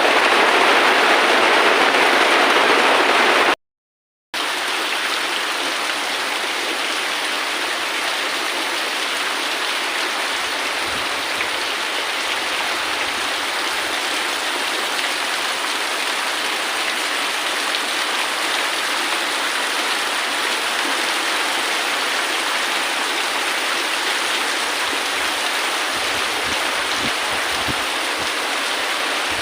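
Steady rain falling, an even hiss. About four seconds in the sound cuts out completely for under a second, then comes back as slightly quieter, steady rain.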